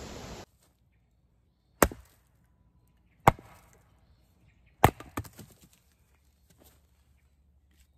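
Axe chopping into wood: three sharp strikes about a second and a half apart, followed by a few fainter knocks.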